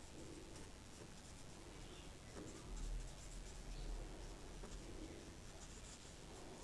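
Faint, soft strokes of a paintbrush spreading wet paint on paper, in irregular short sweeps, with a faint low rumble about three seconds in.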